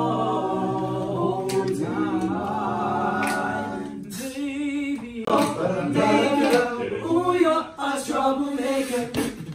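Men's a cappella group singing in close harmony. For about four seconds they hold sustained chords. Then the voices break into a quicker, rhythmic part with sharp percussive clicks.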